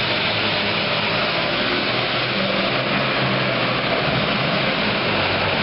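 Super Farm class pulling tractor's modified turbocharged diesel engine running flat out under load, steady and loud.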